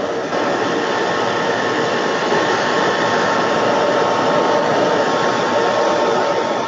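Handheld hair dryer running, a steady rush of air with a faint motor hum, getting louder a moment in. It is blowing hot air to shrink a new wrap onto a battery.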